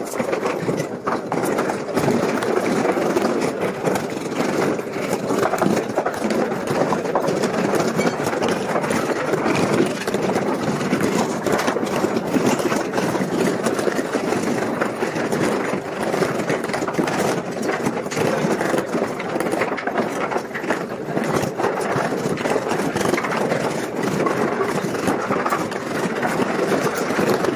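A steady engine-like machinery drone at an even level throughout.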